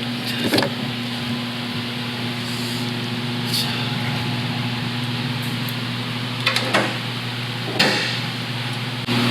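Car engine idling steadily, with a few short sharp clicks or knocks about half a second in and again near the end.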